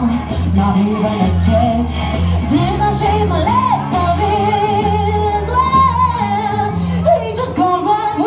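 A woman singing lead over a live band of acoustic guitar, electric guitar and drums, holding long wavering notes over a steady beat with cymbals.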